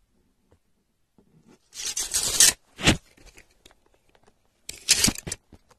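Brief scraping and rustling as a tape measure is handled against a cardboard target, in two short spells about two seconds in and near the end, with one sharp click just before the three-second mark.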